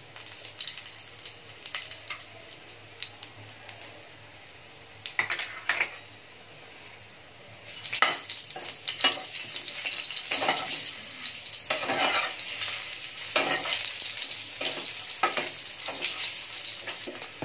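Whole boiled eggs sizzling in hot oil in a non-stick pan, with repeated scrapes of a metal spatula turning them. The sizzle gets louder about eight seconds in.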